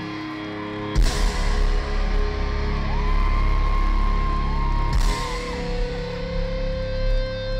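Loud live rock band with distorted electric guitars holding long ringing notes that slide up in pitch, over heavy bass and drums, with crashing hits about one second and five seconds in.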